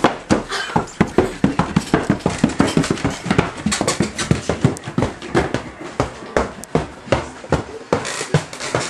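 Quick footsteps of people climbing an indoor staircase, a fast uneven run of sharp steps, about three or four a second.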